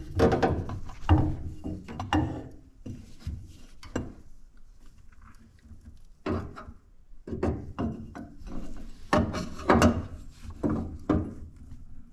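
Irregular knocks, scrapes and clunks of a new plate heat exchanger being worked into place against the diverter valve inside a Baxi Main Eco 30 combi boiler. The handling comes in two busy spells, the first two seconds or so and again from about six to eleven seconds in, with a quieter pause between.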